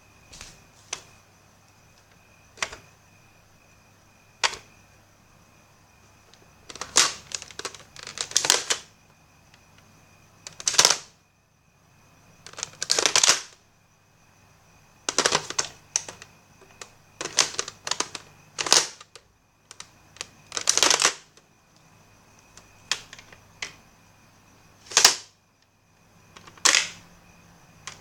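Nerf blaster being worked: a few light clicks, then a run of about fifteen short, sharp bursts and clacks at irregular intervals.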